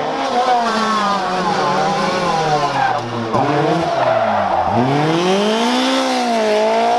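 Lancia 037 Group B rally car's supercharged four-cylinder engine revving hard, the pitch climbing and falling through gear changes, with a brief drop about three seconds in and a deep fall to low revs a little later before it climbs again.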